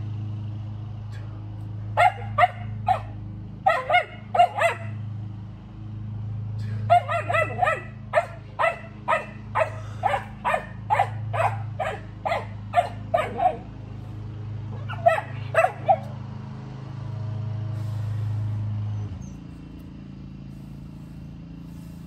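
A dog barking in short, sharp barks: a few at a time, then a steady run of about two barks a second for several seconds, then three more. A steady low hum runs underneath and stops about 19 seconds in.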